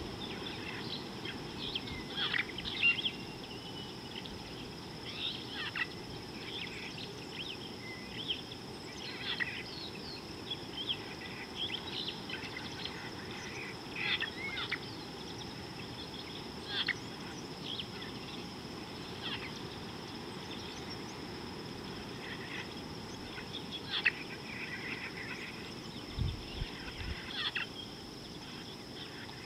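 Wild birds giving short chirps and calls every second or two over a steady high whine and a low, even background hiss, with a brief low thud near the end.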